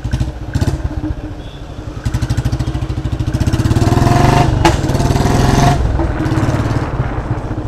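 Royal Enfield Bullet 350's single-cylinder engine running through a free-flow exhaust with an emptied silencer while the bike rides at low speed. The exhaust beat grows louder as the throttle opens about two seconds in, then eases off about six seconds in.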